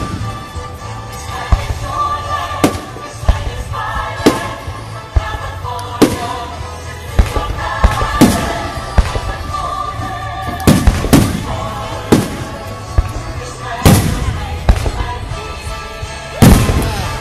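Aerial firework shells bursting overhead: a string of sharp bangs at uneven intervals, about fourteen in all, the loudest coming in the second half. Music plays steadily underneath.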